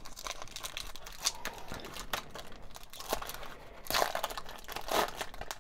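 Foil booster-pack wrapper being torn open and crinkled by hand: a run of crackling rustles, with two louder crunches about four and five seconds in.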